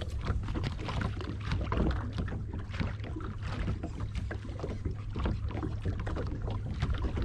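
Small waves slapping and lapping against a boat's hull in irregular little splashes, over a steady low rumble.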